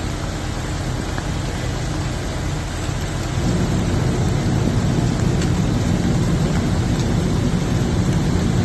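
A vehicle engine running under a steady hiss of heavy rain. The engine's low hum grows louder about three and a half seconds in.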